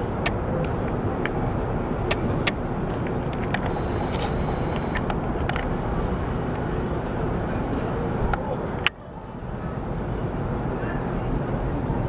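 Steady outdoor rumble, with sharp clicks from handling the camera scattered through it. A louder click about nine seconds in is followed by a brief dip in level.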